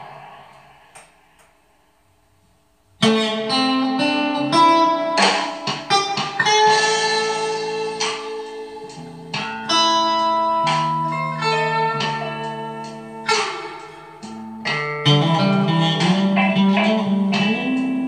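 Solo electric guitar playing picked single-note lines and chords, with no singing. It starts abruptly about three seconds in, after a couple of seconds of near silence.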